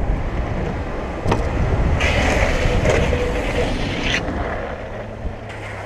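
Longboard urethane wheels sliding sideways across asphalt, a hissing screech lasting about two seconds, over a steady low rolling rumble. A sharp click comes just before the slide.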